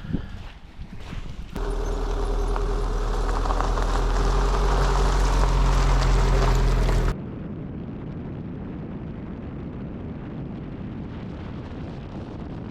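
Vehicle driving, with a steady engine note and a deep road rumble. It cuts abruptly about 7 seconds in to a duller, quieter rumble of road noise.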